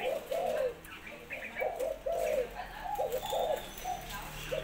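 Thai-bred spotted doves cooing: low, rounded coos repeated in short phrases, with a pause about a second in before the next run of notes.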